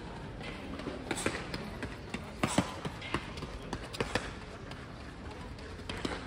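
Running footsteps on a synthetic athletics track: irregular sharp footfalls of sprinters striding past, the loudest about two and a half seconds in, over background voices.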